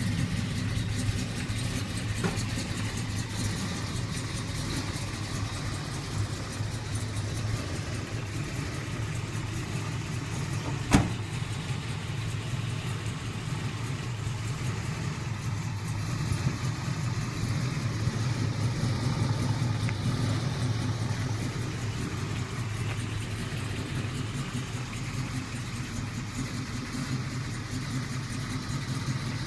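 1980 Oldsmobile Cutlass 442 engine idling steadily, with one sharp click about a third of the way through.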